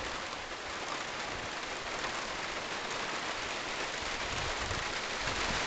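Steady rain falling during a thunderstorm, an even hiss that grows slightly louder toward the end.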